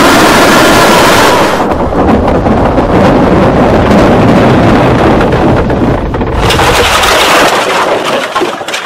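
A loud, sustained rumbling roar, a dramatic sound effect, that swells again briefly past the middle and dies away near the end.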